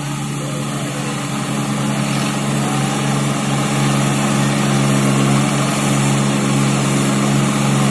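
Two farm tractors' diesel engines running hard under load, pulling against each other in a tug-of-war, a steady drone that grows gradually louder.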